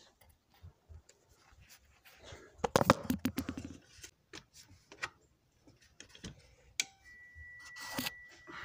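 Clicks and clattering as the YA40 jump starter's clamp cable is unplugged and plugged back in, busiest about three seconds in. Near the end, after a sharp click, a steady high-pitched tone starts and holds.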